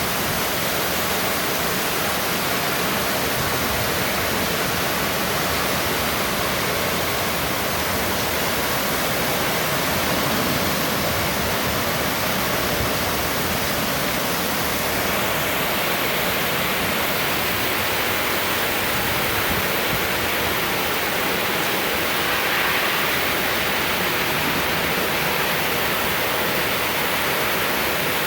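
Heavy rain pouring down steadily in a thunderstorm, an even rushing hiss with no thunder claps.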